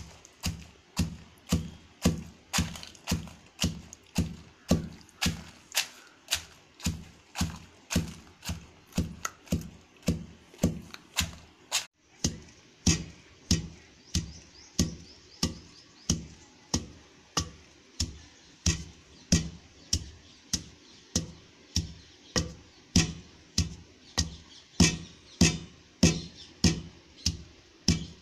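Wooden pestle pounding dried red chillies in a stone mortar set into the floor, striking steadily about one and a half times a second, each blow a dull thud as the chillies are crushed to coarse flakes.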